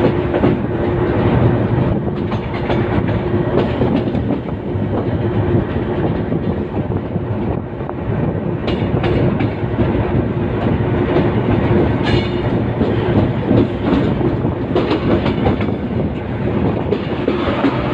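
GE C20EMP diesel-electric locomotive rolling through the yard, heard from its cab window: a steady engine and running drone with a held hum, and the wheels clicking over rail joints and points. There is a brief high squeal about twelve seconds in.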